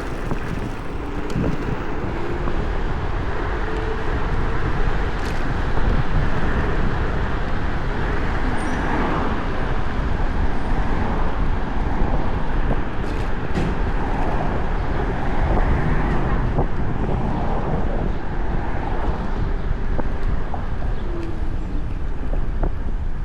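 Steady road and traffic noise heard while riding along a street, with a low rumble of wind on the microphone.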